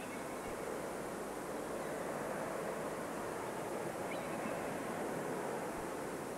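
A steady rushing noise like wind or surf, even throughout, with no distinct tones or knocks.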